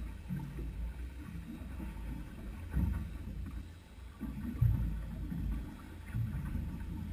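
Water slapping against a small boat's hull under a steady low rumble, with two louder knocks about three and four and a half seconds in.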